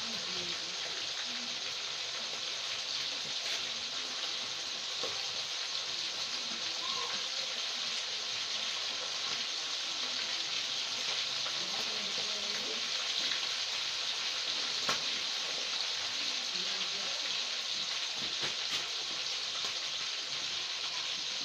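Oil sizzling steadily in a pan as food fries, with a few small pops here and there.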